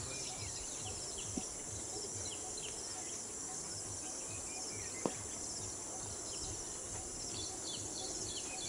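Steady high-pitched chorus of insects trilling in the surrounding grass and trees, with a faint sharp click about five seconds in.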